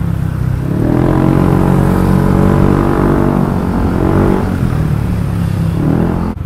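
Yamaha NMAX 155 scooter's single-cylinder engine under way, its note rising about a second in, holding steady, then dropping off as the throttle eases; the sound cuts off suddenly near the end.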